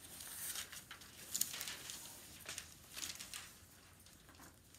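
Faint, scattered rustles of paper being handled, a few short crinkly bursts about a second apart.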